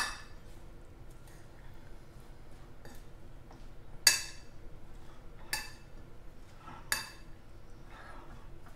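Fork stirring a chopped salad on a plate, with sharp clinks of metal on the plate: one at the start, the loudest about four seconds in, then two more about a second and a half apart. Soft stirring sounds fill the gaps.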